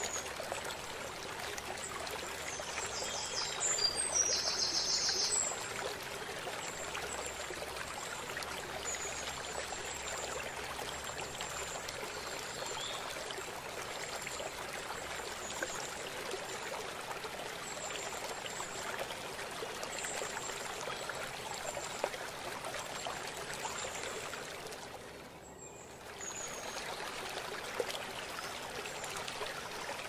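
Steady rush of a small waterfall and stream running over rocks. A short high trill rises above it about three to five seconds in, and the water sound dips briefly about five seconds before the end.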